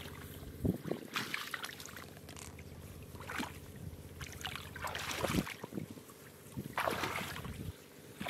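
Hands splashing and squelching in shallow muddy rice-paddy water while groping for catfish, in short irregular bursts, over a steady low hum.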